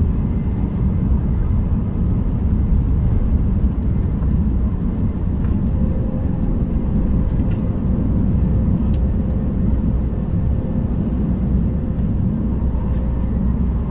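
Steady low rumble of airliner cabin noise, the engines and rushing air heard from a passenger seat. About halfway through a faint steady hum joins it.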